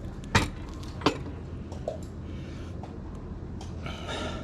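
Two sharp knocks, about two-thirds of a second apart, over a steady low hum: parts or tools knocking together during work on the motorcycle's rear wheel.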